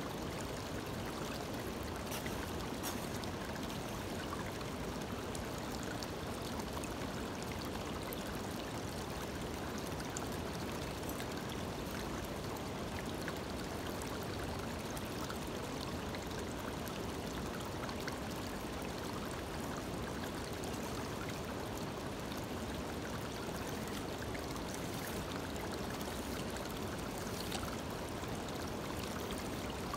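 Shallow creek water running steadily over stones and through a small gold-prospecting sluice box.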